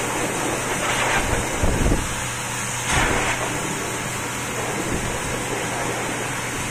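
Pet grooming dryer blowing a steady rush of air onto a wet cat's fur, swelling briefly a few times as the nozzle moves.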